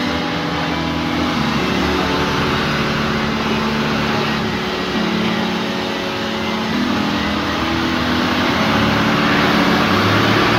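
Steady mechanical running drone with a hum that shifts in pitch now and then, and a hiss that grows slightly louder near the end.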